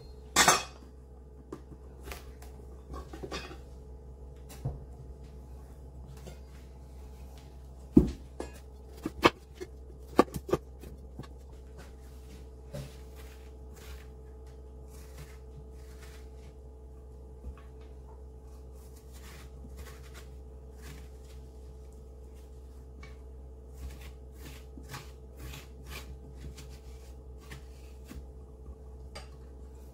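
Knocks of a knife and a split winter squash on a wooden cutting board, loudest about half a second in and again around eight to ten seconds in, then a metal spoon scraping seeds and stringy pulp out of a squash half in many small clicks and scrapes, over a steady hum.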